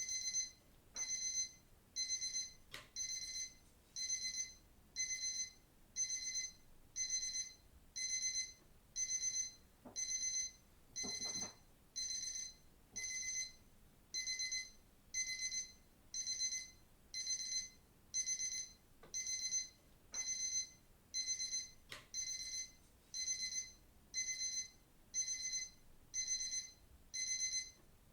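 Digital watch alarm beeping: high, shrill electronic beeps in short bursts, about one burst a second, repeating evenly.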